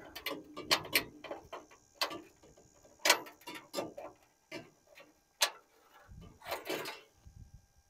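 Irregular sharp clicks and taps of hands working on the ignition parts in the engine bay of a 1976 HX Holden ute, with a longer scraping noise near the end.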